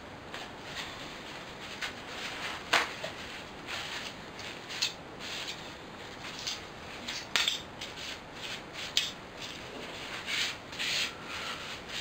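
Emery cloth rubbed over a small piece of thin aluminium drinks-can metal in short, irregular scraping strokes, with a few sharp clicks as the piece is handled and a quicker run of strokes near the end. The rubbing thins the metal and takes the shine off it for a pinhole lens.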